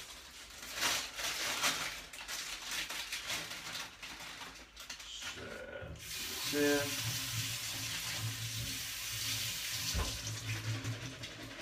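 Kitchen tap running into a sink as shelled peas are rinsed in a bowl: light clatter of handling for the first few seconds, then the water comes on about halfway through and runs steadily with a low hum beneath it, easing off near the end.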